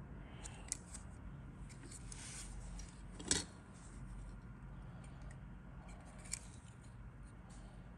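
Plastic model-kit sprues handled in the fingers, with faint rustling and a few sharp plastic clicks and taps. The loudest click comes a little past three seconds in, with smaller ones near the start and near the end.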